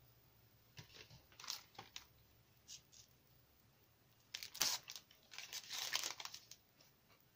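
Paper and a clear plastic sleeve crinkling and rustling as they are handled, with a few short rustles early on and longer crinkling near the middle.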